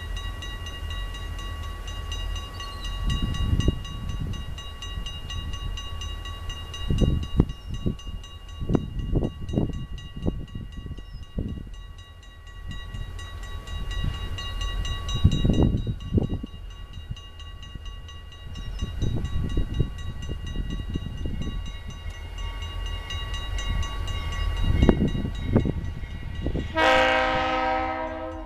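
Grade-crossing warning bell ringing steadily, with irregular low rumbles underneath. Near the end a diesel locomotive's air horn sounds loudly.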